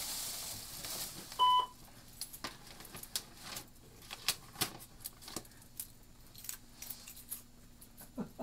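Coat fabric and a plastic bag rustling close to the microphone, with a short electronic beep about a second and a half in. Scattered light clicks and rattles of small objects being handled follow, over a faint steady hum.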